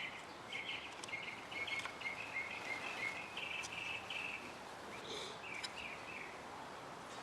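Faint bird chirping in short repeated runs, with a few light clicks scattered through, typical of small rifle parts being handled.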